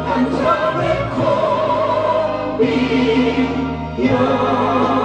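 Korean trot duet: a man and a woman singing into microphones over instrumental accompaniment, amplified through a PA.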